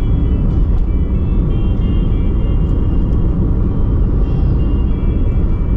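Steady, loud low rumble with faint steady high tones above it.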